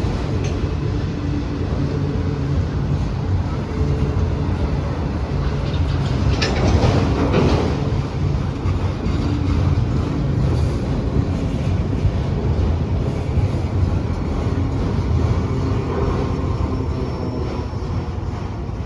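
Freight train rolling past, a steady low rumble of wheels on rail, with a louder stretch of clatter about six to eight seconds in.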